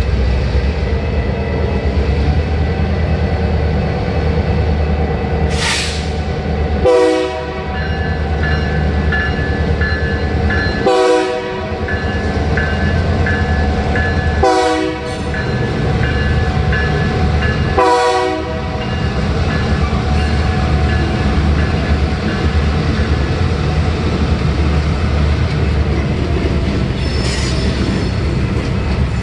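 Diesel freight locomotive approaching a grade crossing, sounding four short horn blasts about three to four seconds apart over a steady engine rumble, with the crossing bell ringing. Near the end the covered hopper cars roll past with a steady rumble and clatter.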